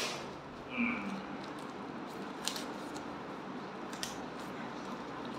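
Plastic courier mailer being torn open by hand, with a short louder burst about a second in and a couple of sharp clicks later.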